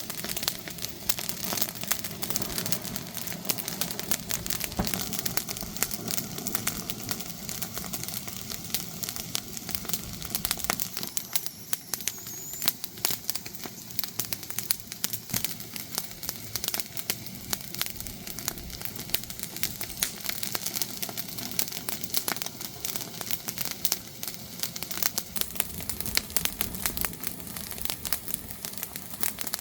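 Wood fire crackling, with dense, irregular pops and snaps.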